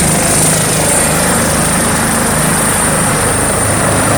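Helicopter running steadily: a continuous engine and rotor drone under a constant high whine.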